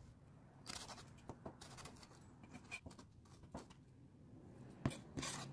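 Faint, irregular knife taps on a plastic cutting board as red chili peppers are sliced and minced, with one sharper tap near the end.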